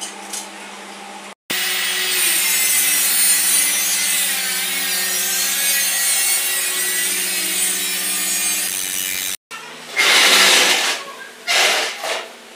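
A power tool running steadily and loudly for about eight seconds, then cutting off abruptly. A few short, loud bursts of noise follow near the end.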